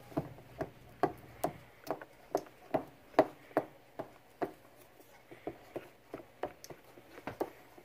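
A utensil knocking against the side of a mixing bowl while stirring a thick glue and shaving-cream mixture, in regular strokes about two or three a second that grow fainter about halfway through.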